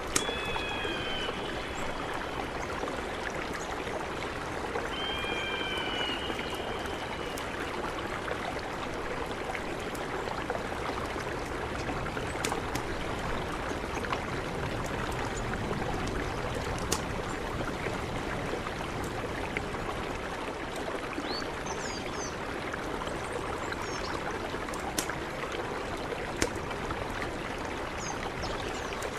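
Mountain river flowing with a steady rush of water. A bird gives a whistled call twice in the first several seconds, and brief high chirps come near the end.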